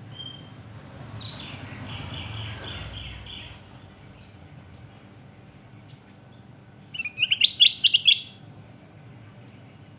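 Kutilang emas (golden bulbul) calling: a faint run of about six quick repeated notes a little over a second in, over a low rumble, then a loud burst of rapid chattering notes about seven seconds in that lasts about a second.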